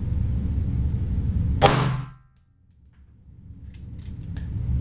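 A single 9mm pistol shot from a Glock 23 with a 9mm conversion barrel, firing a 115 grain jacketed hollow point, about two seconds in, over a steady low rumble. A few faint clicks follow near the end.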